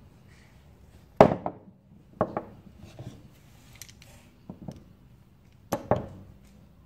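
Sharp knocks and clacks of broken plaster mould pieces and steel locking pliers on a wooden workbench, as a cast lead cone former is freed and gripped. The loudest knock comes about a second in, and a quick double knock comes near the end.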